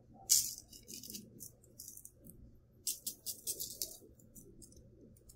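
Spice shaker of Cajun blackening seasoning shaken over raw fish fillets on a foil-lined tray, in two bouts of quick rattling shakes, the first about half a second in and the second near the three-second mark.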